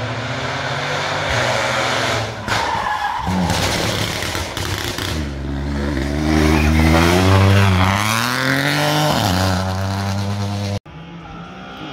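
Peugeot 208 Rally4's turbocharged three-cylinder engine at race pace through a hairpin. The revs drop as it slows for the bend, then rise hard as it accelerates out, with a gear change in the climb. The sound cuts off abruptly near the end.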